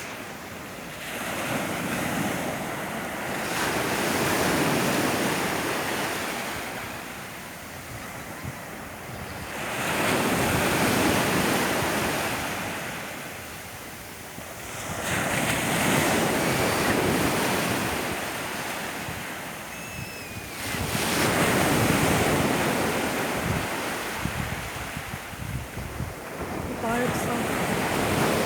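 Mediterranean sea waves breaking and washing up the beach, the surf swelling and falling back about every six seconds.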